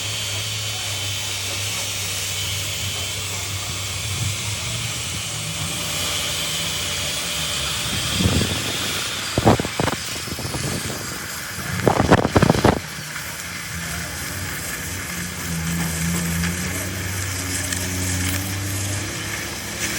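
An engine running steadily with a low hum and hiss, broken by a few sharp knocks: a couple about eight to ten seconds in and a short cluster about twelve seconds in.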